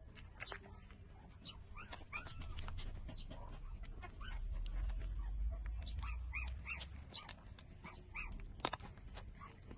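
Four-week-old puppies squeaking and whimpering in many short, high calls while they nurse, with small clicks among them. A low rumble comes in partway through, and there is a sharp click near the end.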